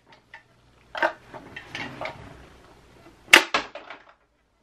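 Elastic-powered Toys"R"Us Pets Kannon ball launcher, a plastic tube, being loaded and primed with a small box, giving soft rustling and scraping, then firing with a single sharp snap a little past three seconds in.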